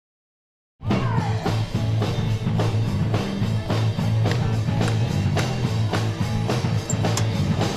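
Background music with a steady beat and a bass line, starting just under a second in after a moment of silence.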